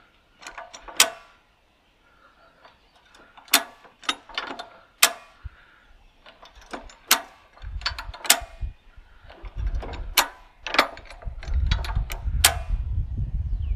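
Ratcheting high-lift jack being worked as it is readjusted: sharp metallic clicks of its pins catching on the steel bar, one every second or two, with a low rumble building from about halfway.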